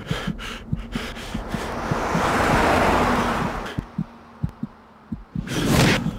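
A long whoosh of noise swells up and fades away over about two seconds, with scattered short clicks around it, and a second, shorter whoosh comes in near the end.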